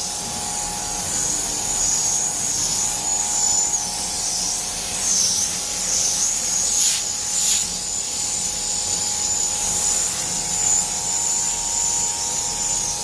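High-pressure water jet spraying an air conditioner's indoor unit, a steady loud hiss over the whine of the washer pump, with brief dips in the hiss a few times as the jet moves.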